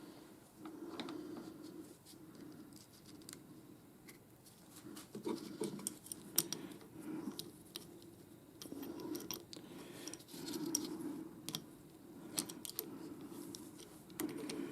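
Small steel lathe parts being handled and fitted by hand during reassembly of a tool slide and its greased bearings: scattered light metallic clicks, taps and scrapes, with soft handling rustle in between.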